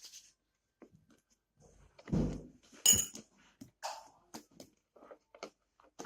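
Handling sounds of slime being worked by hand at a table: a soft thump about two seconds in, then a sharp clink just after, with scattered small clicks and sticky rustles.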